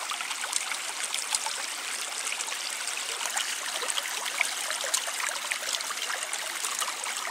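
Water running steadily through a breach in a beaver dam, trickling and splashing, with scattered light clicks.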